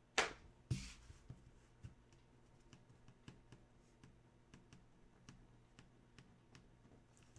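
Hands handling trading cards and their holders: two sharp clicks in the first second, then faint scattered taps.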